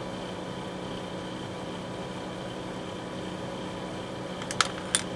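Steady mechanical hum, like a fan running in a small room, with two sharp clicks close together near the end.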